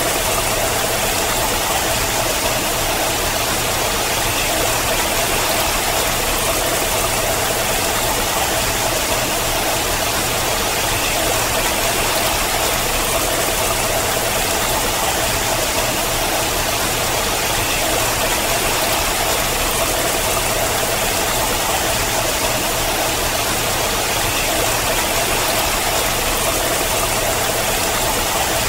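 Water streaming and splashing down a steep rock face, a steady even noise.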